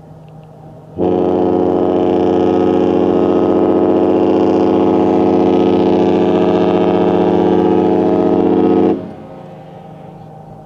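Disney cruise ship's horn sounding one long, loud, steady blast of about eight seconds, starting about a second in and cutting off near the end.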